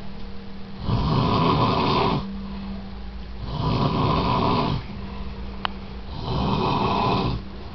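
A sleeping man snoring: three snores, each a little over a second long, about every two and a half seconds.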